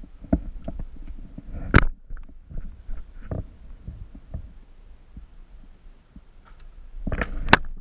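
Scattered low thumps and knocks from movement close to a head-mounted camera, with a sharp crack about two seconds in and another, louder one near the end.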